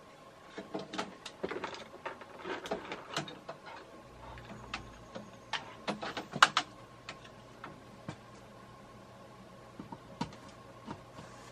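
Scattered clicks, taps and knocks of hands handling the hanging ceiling fan and its control wiring, the loudest knock about six and a half seconds in. A faint steady hum comes in about four seconds in.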